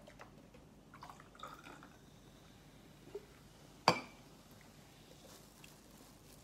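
Aluminium Coca-Cola can handled on a glass-topped table: faint clinks and liquid sounds, then one sharp knock about four seconds in as it is set down.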